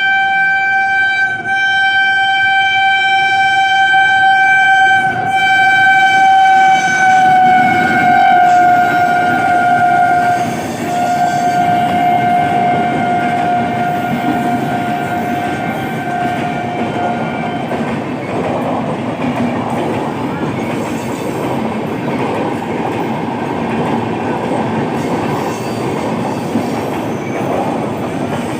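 WAP-7 electric locomotive sounding a long, loud horn blast as the train passes at speed. The horn's pitch drops slightly partway through and it stops about two-thirds of the way in. The rumble and wheel clatter of the passing coaches follow.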